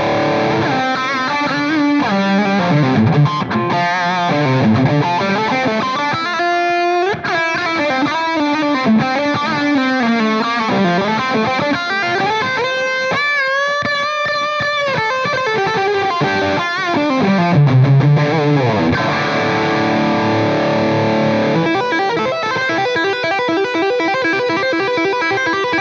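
Electric guitar played through a Soldano SLO overdrive pedal set to high gain, with delay on. It plays distorted lead lines with long-sustaining notes, a bend about seven seconds in, and a held note with wide vibrato near the middle.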